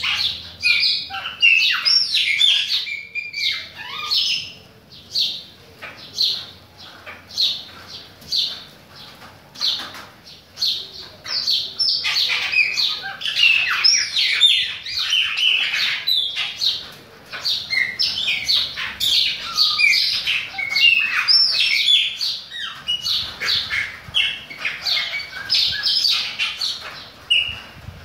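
Chopi blackbirds (Gnorimopsar chopi) singing: a continuous run of short, quick chirping and whistled notes, often overlapping.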